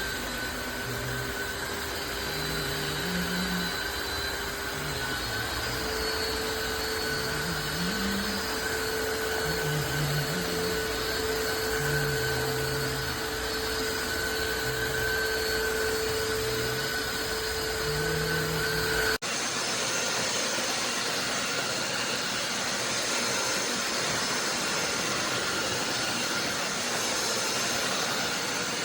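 Tineco Floor One S5 wet-dry steam vacuum running steadily, its motor hum stepping up slightly in pitch about five seconds in. About two-thirds of the way through the sound cuts abruptly to a steady rushing hiss.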